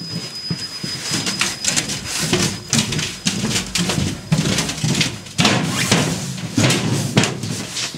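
Footsteps and clothing rustling against the camera as someone walks, heard as a quick, irregular series of knocks and scuffs. A faint high whine fades away in the first three seconds.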